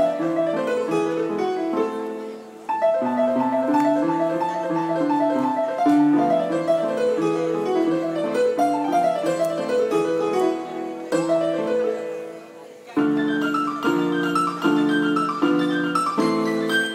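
Electronic keyboard played solo with a piano sound: a flowing melody with runs of notes, easing off briefly twice, then repeated chords struck about twice a second in the last few seconds.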